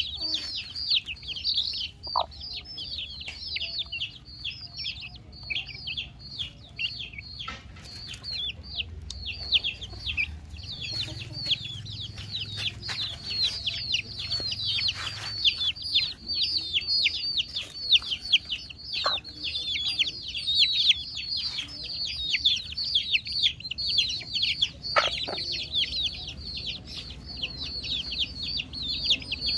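A flock of young chickens peeping without a break: rapid, high-pitched chirps that each drop in pitch. A few short knocks come in among them.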